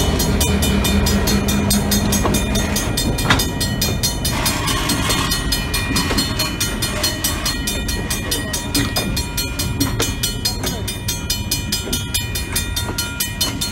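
Freight cars rolling past over a grade crossing, wheels rumbling and clattering on the rails. The crossing bell rings steadily at about four strokes a second. The rolling noise fades toward the end as the last cars clear the crossing.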